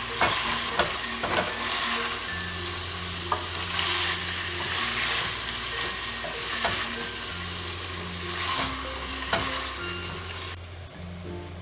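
Wooden spoon stirring chunks of chicken and potato in a metal pot on the hob, with scattered knocks of the spoon against the pot over a light sizzle. The stirring and sizzle die down near the end.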